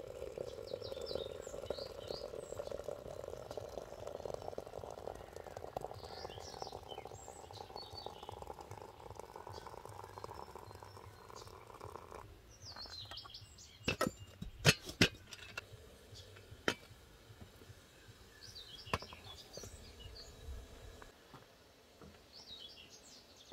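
Hot water poured in a steady stream from a kettle into a glass teapot of fresh herbs, the pouring sound rising slowly in pitch as the pot fills, then stopping about halfway through. A few sharp clinks follow shortly after, while small birds chirp now and then.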